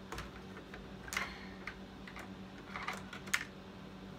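Scattered small clicks and taps of hard plastic being handled while a headset cable is plugged in, about five in all, over a faint steady hum.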